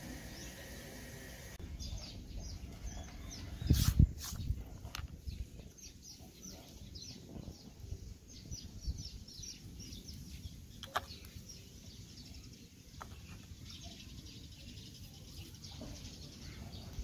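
Chickens clucking with many short, high, falling peeps scattered throughout. A loud thump comes about a quarter of the way in, and a sharp click about two-thirds in.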